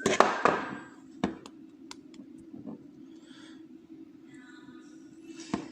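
Small metal clicks and clinks of an ASSA oval cylinder lock's parts and tools being handled during disassembly: a quick cluster of clicks at the start, a single click a little over a second in, and another near the end, over a faint steady hum.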